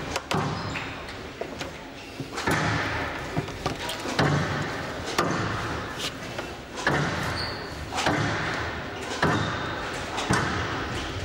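Squash rally: the ball cracking off rackets and walls about once a second, each hit echoing round a large hall.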